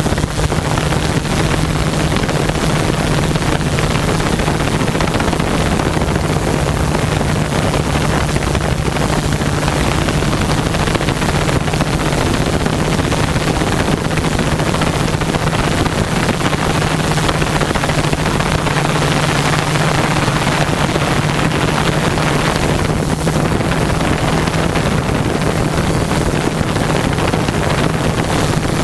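HMF U580 quadcopter's Gartt 3508 brushless motors and propellers running with a steady low hum, picked up by the camera on board, under heavy wind noise on the microphone.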